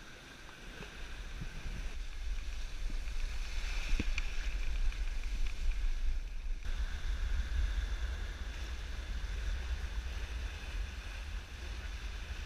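Wind buffeting the microphone over the rush of water along a sailing yacht's hull. The sound changes abruptly a little past halfway, the low wind rumble growing heavier.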